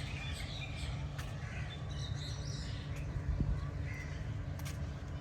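Crows cawing and smaller birds chirping over a steady low rumble, with a single bump about three and a half seconds in.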